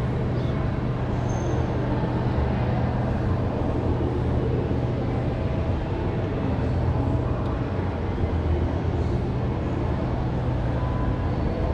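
Steady low mechanical hum with an even rumble, the room tone of a large building's interior.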